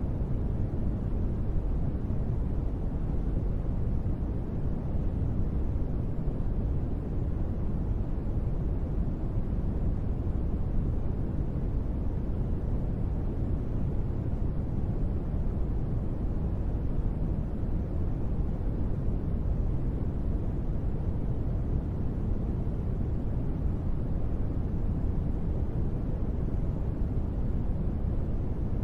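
Steady white-noise sleep track: an even, deep rushing hiss that does not change.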